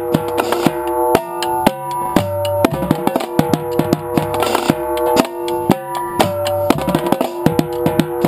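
Marching tenor drums played up close with mallets in a fast drumline cadence, backed by bass drums and a cymbal crash about halfway through.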